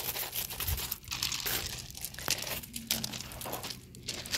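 Crunching footsteps on loose ground, about one step a second, with crackly rustling between them.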